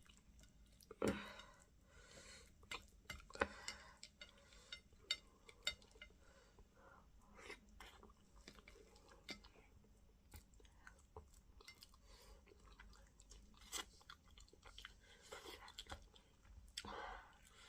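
Close-miked chewing of okra stew and fufu, with irregular wet lip-smacks and mouth clicks, a few louder ones about a second and three and a half seconds in.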